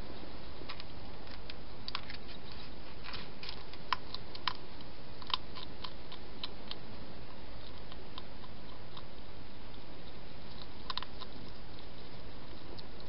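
A wild hedgehog crunching dry food from a dish: a cluster of sharp, clicky crunches a few seconds in and a couple more near the end, over a steady hiss.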